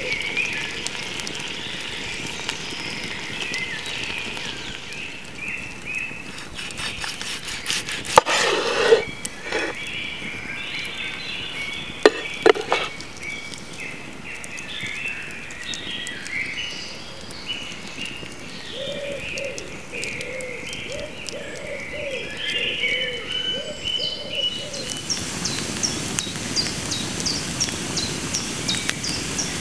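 Birds chirping and singing in a forest, with a few sharp knocks about eight and twelve seconds in. Near the end a wood fire crackles and hisses, taking over from the birdsong.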